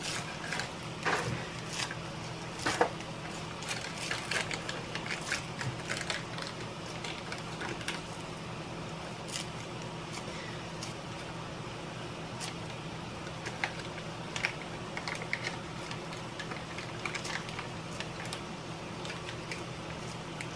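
Kitchen scissors snipping sweet potato leaves, a run of quick, crisp snips and clicks, thick in the first several seconds and sparser after, over a steady low hum.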